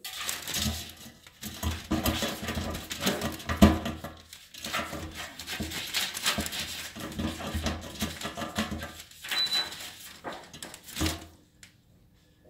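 A ferret scrabbling and clambering at a lidded bin, rustling the plastic bin bag and knocking against the bin in irregular scratchy bursts with dull thumps. The noise stops near the end.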